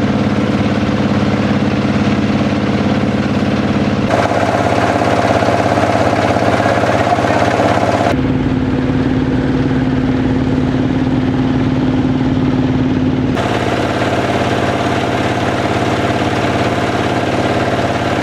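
Small passenger boat's engine running steadily underway, a loud even hum. Its pitch and tone change suddenly about 4, 8 and 13 seconds in.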